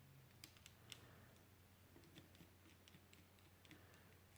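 Faint, scattered small clicks and ticks from a small Phillips screwdriver working tiny screws out of a Joy-Con's plastic housing, over a faint steady hum.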